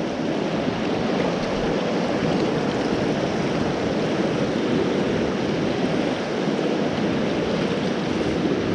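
Glacier-fed river running fast: a steady, pretty loud rush of water.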